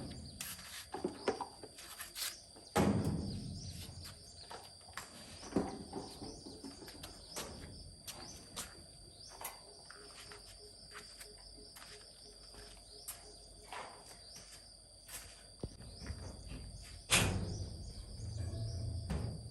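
Scattered knocks and clicks, with heavier thuds about three seconds in and near the end, over a steady high-pitched drone.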